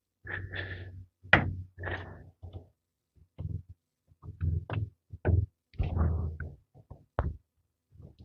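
Irregular knocks and clunks, about a dozen short ones with brief gaps, from hands and tools working a drive belt onto the pulleys of a 1971 Chevy C10's engine.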